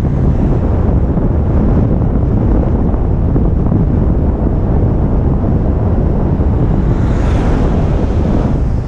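Loud, steady wind noise buffeting an action camera's microphone on a fast downhill run on a footbike.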